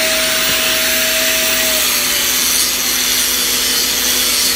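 Hitachi electric angle grinder running with a loud, steady high hiss; about two seconds in its motor pitch sags a little as the disc is put to a metal workpiece and starts grinding.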